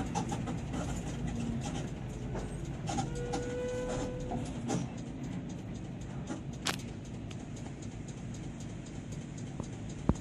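Vehicle engine running with a steady low rumble in slow traffic, with a few scattered clicks and a short steady tone about three seconds in.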